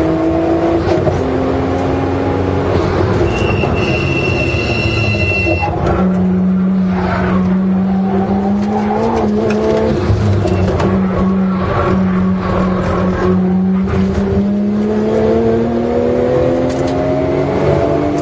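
Car engine heard from inside the cabin on a hot lap: revving up, then a high squeal for about two seconds as the car brakes for a corner. A steady engine note follows through the bend and rises again as the car accelerates out.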